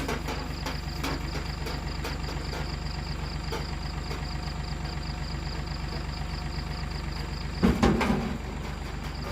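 An engine idling steadily with an even low beat. A louder clatter comes about eight seconds in.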